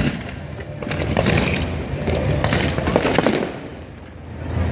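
Aerial fireworks bursting and crackling, with clusters of quick, sharp pops; the densest crackle comes in the second half, then it dies down near the end.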